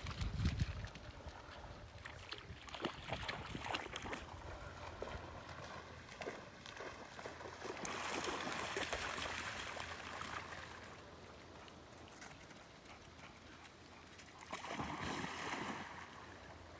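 Dogs splashing in a shallow dam: scattered faint splashes in the water, with a louder splash near the end as a dog plunges in.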